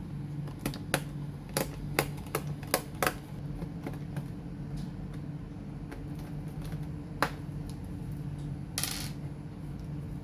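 A series of sharp, small clicks and taps of hard plastic and metal parts being handled on a hard surface, bunched in the first three seconds with another a few seconds later and a brief scraping rustle near the end, over a steady low hum.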